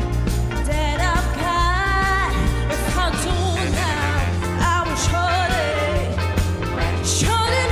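Woman singing live into a microphone, backed by a big band, with a steady drum beat and bass line under her voice.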